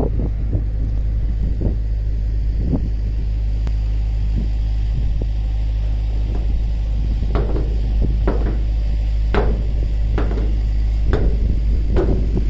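Wind buffeting the microphone in a steady low rumble, with a series of irregular sharp knocks, most of them in the second half.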